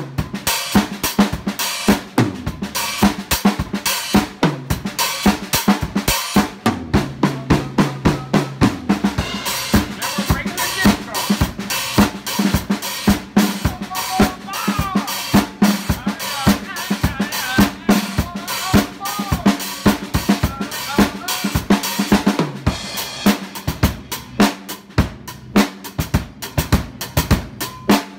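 Drum kit played continuously with sticks in a busy groove of snare, bass drum and hi-hat strokes. Tom fills ring out low at a couple of points, about four and seven seconds in.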